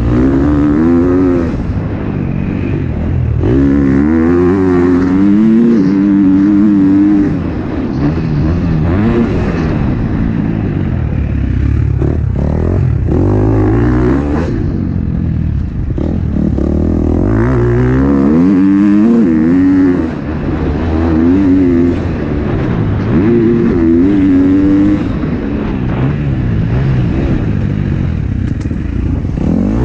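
A 2021 KTM 250 SX-F motocross bike's single-cylinder four-stroke engine, heard from on board, revving up and backing off again and again as it is ridden hard around a dirt track. The pitch climbs with each throttle opening and drops off as the rider shuts off into corners.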